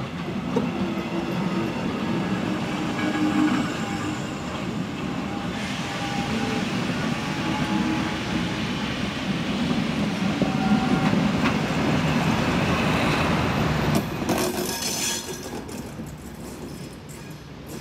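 Passenger train of coaches rolling past close by: a steady rumble of wheels on the rails. It fades about fourteen seconds in as the end of the train goes by.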